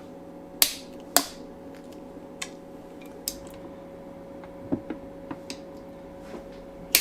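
A few sharp metallic clicks and knocks of tools or engine parts being handled: two loud ones about half a second apart near the start, a scatter of lighter ticks after them, and another loud click at the end. A steady low hum runs underneath.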